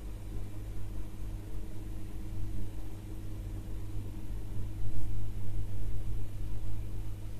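A low rumble with a steady hum over it, swelling and dipping, loudest about five seconds in.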